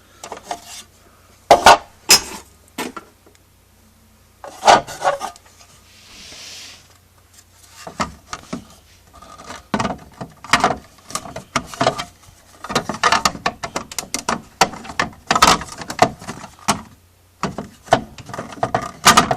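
Plastic lamp cover of a Hitachi rear projection TV knocking, clicking and scraping against the set's housing as it is pushed and worked against its tabs and slots without seating. A few sharp knocks in the first seconds, then a denser run of rapid clatter through the second half.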